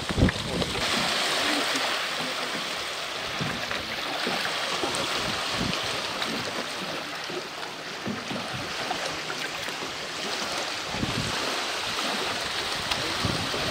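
Steady rush of wind and choppy lake water washing at the shore, with gusts rumbling on the microphone and a single thump right at the start.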